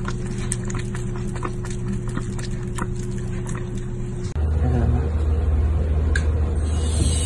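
A cat lapping at a thin stream of tap water from a faucet, quick irregular wet clicks over a steady low hum. About four seconds in, it cuts to a louder steady low hum, with hiss building near the end.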